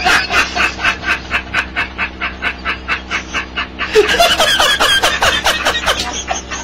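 A man laughing hard in a rapid string of breathy ha-ha pulses, about five a second. About four seconds in, the laughter turns higher and more voiced.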